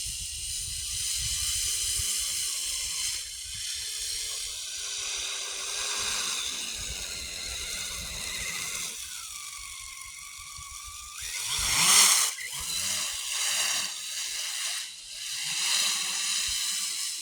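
Electric drive motor and geartrain of a tracked RC Summit truck whining steadily in high gear as it churns through deep snow. About twelve seconds in there is a brief louder rush of noise.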